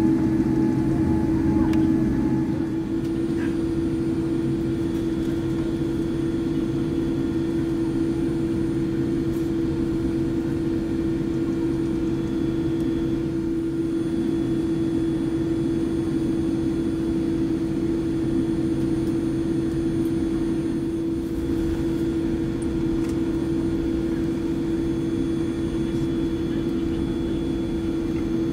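Steady airliner cabin noise inside a Boeing 787-8: an even rush with a constant mid-pitched hum, the deeper rumble easing a little about two and a half seconds in.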